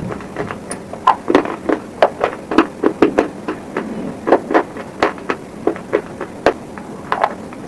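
Close-miked eating crunches: hard, brittle pieces bitten and chewed, a quick run of sharp crunches about three or four a second.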